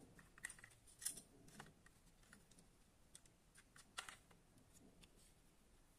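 Faint, irregular clicks and taps of fingers handling a small plastic toy golf cart, its body and parts knocking lightly together. The sharpest clicks come about a second in and again about four seconds in.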